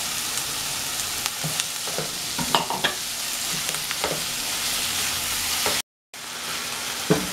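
Chopped onion and freshly added diced tomatoes sizzling in hot clarified butter in a metal pan, stirred with a silicone spatula that knocks and scrapes against the pan a few times. The sound drops out for a moment near the end.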